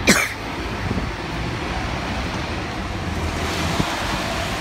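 Wind noise on the microphone over steady street traffic, with a short sharp sound right at the start.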